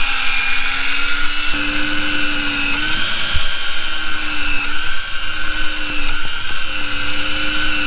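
Daiwa electric fishing reel's motor whining steadily as it winds a hooked fish up from a deep drop, its pitch stepping up slightly about one and a half seconds in.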